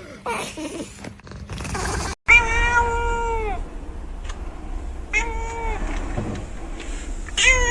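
A cat meowing three times: a long meow about two seconds in, a shorter one in the middle, and a third near the end, each falling in pitch as it ends.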